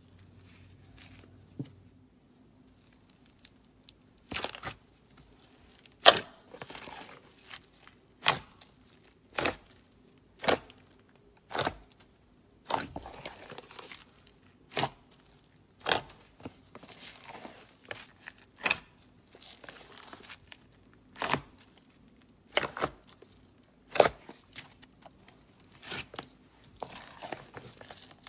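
Thick slime being stretched and folded by hand, giving sharp pops about once a second with soft crackling between them, starting about four seconds in.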